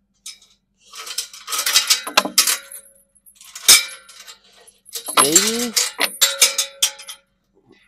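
Metal chain and latch rattling and clinking against a metal tube ranch gate as it is worked by hand, in bursts, with one sharp metallic knock a little under four seconds in.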